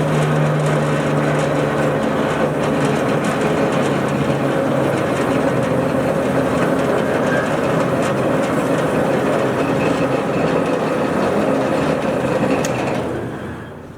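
Marvel Mark II vertical bandsaw running steadily with a machine hum, then winding down near the end as it is shut off.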